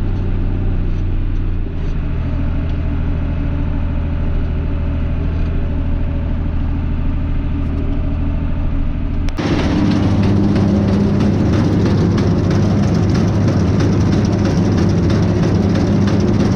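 Farm tractor engine running steadily, heard from the driver's seat. About nine seconds in, this cuts abruptly to louder, denser machinery: a forage wagon's beaters and cross conveyor unloading chopped corn silage into a silage bagger, with engines running.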